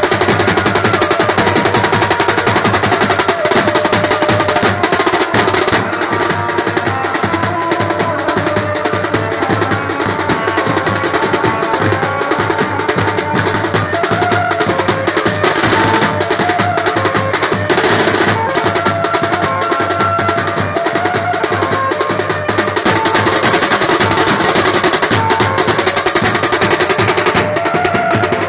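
Street drum band playing: large handheld bass drums and a stand-mounted set of tenor drums struck with sticks in a fast, dense, continuous rhythm.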